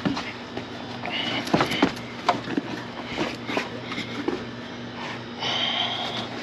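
Car floor carpet being pulled up by hand from a stripped MK5 Golf GTI footwell: rustling and scraping with scattered knocks of the backing against the floor pan and plastic clips, and two short squeaky scrapes, one about a second in and one near the end. A steady low hum runs underneath.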